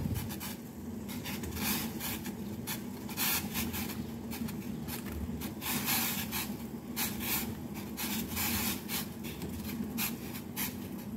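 Water at a rolling boil in a stainless steel pot, bubbling with irregular pops and crackles as boiled eggs are put in, over a steady low hum.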